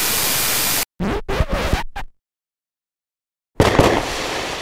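Outro logo sound effects: a loud blast of static-like hiss that cuts off a little under a second in, a few short scratchy stutters, a second and a half of silence, then a sudden loud hit that starts to fade near the end.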